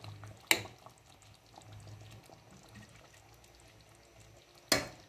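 A spoon clinks once against a stainless steel pot of beans curry about half a second in. The thick curry then simmers faintly, and a louder clatter of the spoon in the pot comes near the end.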